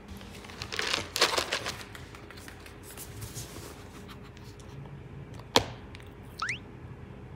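A plastic treat jar being handled: rattling and rustling, then one sharp click of its lid. Just after the click comes a short squeak that rises in pitch.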